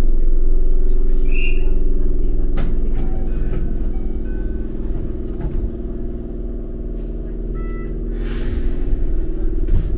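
Enoden narrow-gauge electric train heard from inside the carriage: a steady running rumble with a low motor hum, scattered clicks from the wheels and rails, and a few short squeaks. The noise eases a little around the middle and builds again toward the end.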